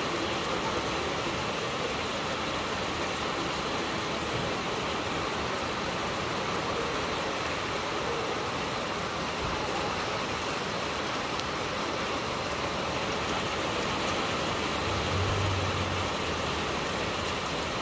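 Heavy rain falling steadily, an even hiss. About fifteen seconds in, a low hum swells briefly and fades.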